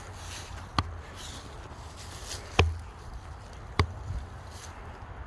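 Three sharp knocks on wood, irregularly spaced, the middle one loudest: strikes against a tree or wooden post as kung fu practice.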